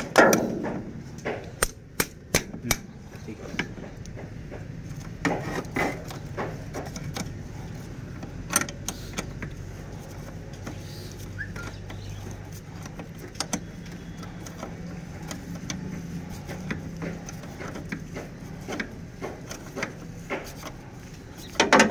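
A metal hand tool clicking and scraping on a battery terminal clamp as the battery cable is fastened and tightened. The sharp clicks come unevenly, over a steady low background hum.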